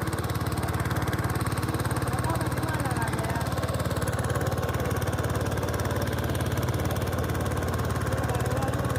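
Small boat engine running steadily at a constant speed, with an even, rapid pulsing hum.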